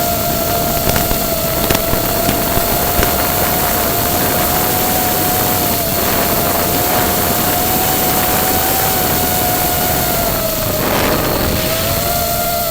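FPV quadcopter drone's motors and propellers whining at a steady pitch over a rushing noise, the pitch dipping briefly and climbing back near the end as the throttle changes.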